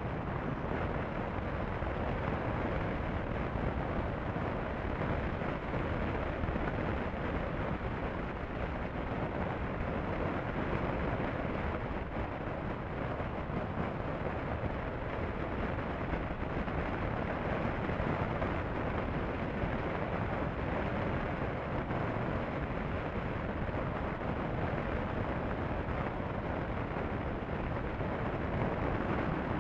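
Steady wind rush and road noise on a motorcycle's camera microphone while cruising at highway speed: a dense, unbroken rumble.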